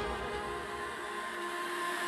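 Melodic techno in a quiet breakdown: held synth tones carry on while the bass and beat fall away over the first second and a half.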